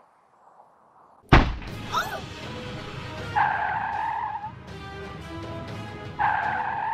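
A sudden loud thump about a second in, as something lands on a car's windshield, followed by music.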